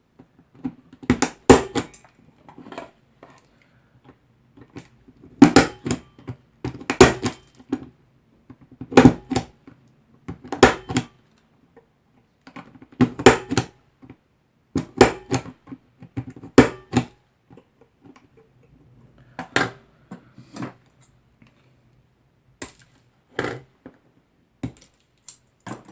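Punch-down tool seating Cat6 wires into insulation-displacement terminals, about a dozen sharp clacks at irregular gaps of one to three seconds.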